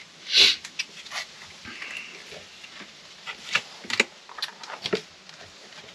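Hands handling a dashboard wiring harness and a plastic switch panel: scattered small plastic clicks and wire rustles, with a short hiss about half a second in.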